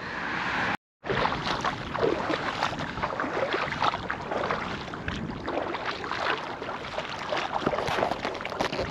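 Shallow water sloshing and splashing close by, with wind buffeting the microphone. The sound drops out completely for a moment about a second in.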